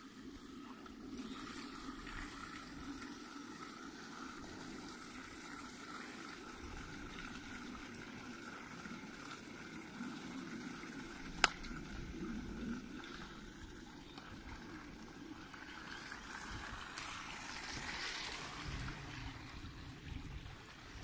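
Small stream trickling steadily over stones, with one sharp click about halfway through.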